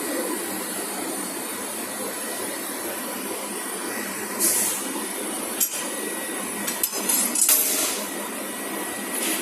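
Steady workshop noise around a handheld fiber laser welder, broken by two short high-pitched hisses and a few sharp metallic clinks.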